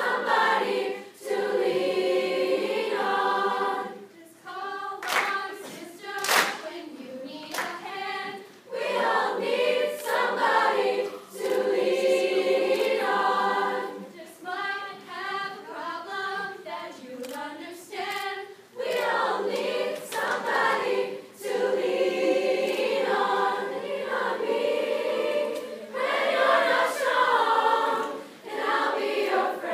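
A youth chorus singing a cappella in full chords, phrase by phrase with short breaths between, with a few sharp claps around five to eight seconds in.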